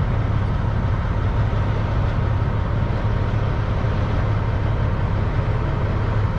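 Peterbilt 379 semi truck's diesel engine running steadily, a deep even rumble.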